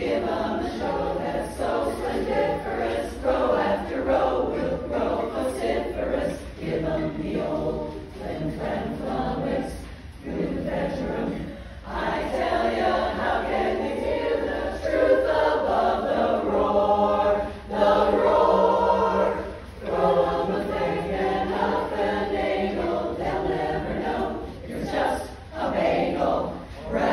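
Women's chorus singing together, with a few short breaks between phrases.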